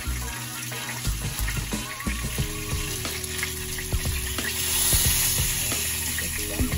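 Floured menpachi (soldierfish) sizzling as they fry in a pan of hot oil, with sharp clicks of metal tongs as the fish are turned. The sizzle gets louder about five seconds in.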